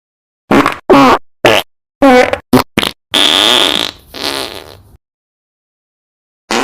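Fart sound effects: a quick run of about six short farts, then a longer, higher squeaky fart that trails off, and one more short fart right at the end.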